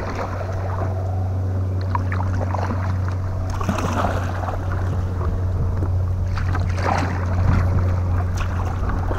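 Kayak paddle dipping into river water, a few soft strokes and splashes, over a steady low hum.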